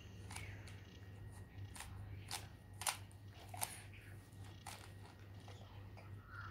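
Stickerless plastic 3x3 Rubik's cube being turned by hand: irregular sharp clicks as the layers snap round, with a handful of louder ones in the middle few seconds.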